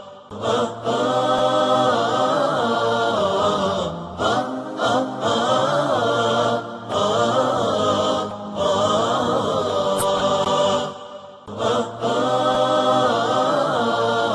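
Wordless a cappella 'aahat': layered voices singing long sustained 'aah' phrases in choir style, with no instruments. The phrases last a few seconds each, with brief breaks between them.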